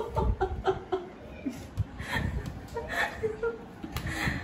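A woman laughing in a run of short bursts, with more laughter about two seconds in.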